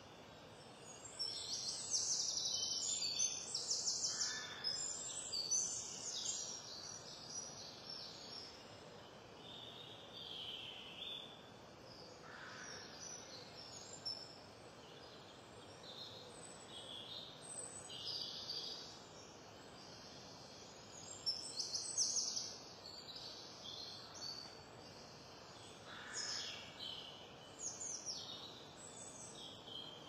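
Small songbirds singing: repeated high, trilling phrases over a steady background hiss, loudest in the first few seconds and again about two-thirds of the way through.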